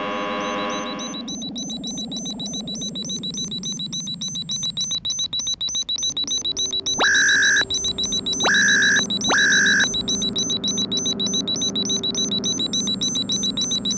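Synthesized electronic science-fiction sound effect: a rapid, even high-pitched pulsing, about four pulses a second, with a falling sweep in the first few seconds. A steady hum joins about halfway through, and three loud beeps come close together in the middle.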